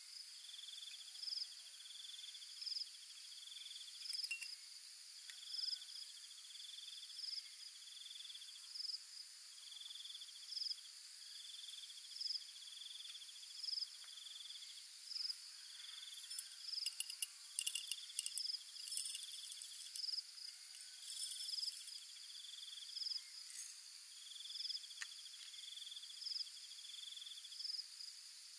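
Chorus of insects: a high trill repeating about every second and a half, with shorter, higher chirps between, over a steady high-pitched hiss. A spell of small sharp clicks and rattles comes in around the middle.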